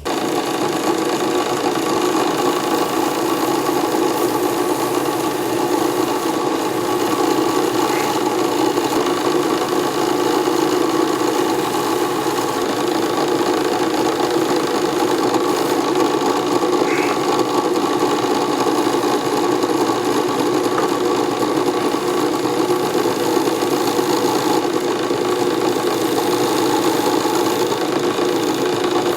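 Wood lathe motor running at a steady speed, with an even hum and whine, as the handle turns for its CA glue finish.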